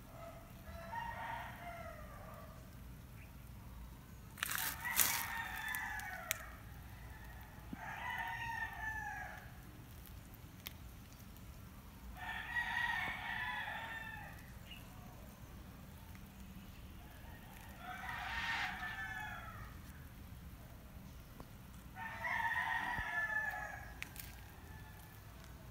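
An animal calling over and over, about six calls in all, each a pitched call of one to two seconds, with a few seconds between them. A couple of sharp clicks come with the second call.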